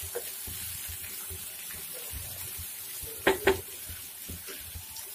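Green masala paste frying in hot mustard oil in a non-stick pan with a steady sizzle, stirred with a wooden spatula. Two sharp knocks come about three seconds in.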